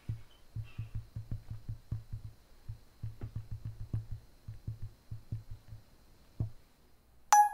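Soft typing taps in irregular runs, several a second with short pauses, as a text message is written out letter by letter. Near the end a short, bright tone sounds.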